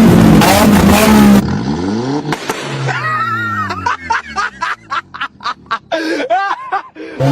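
Performance car engine revving loudly, cut off suddenly about a second and a half in; its note then falls away with a few sharp cracks. From about three seconds a person laughs in short rhythmic bursts.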